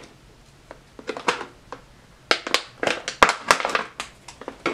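Thin plastic water bottle crinkling and crackling as scissors are pushed into it to cut a hole: a few light clicks at first, then a dense run of sharp crackles from about halfway through.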